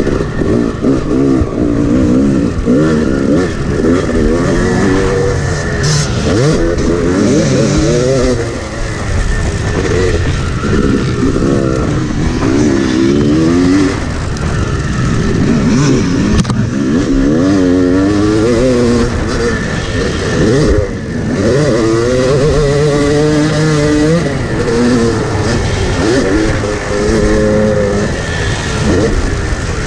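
Yamaha 250 two-stroke dirt bike engine revving up and dropping back again and again as it accelerates, shifts and backs off, heard from on the bike itself.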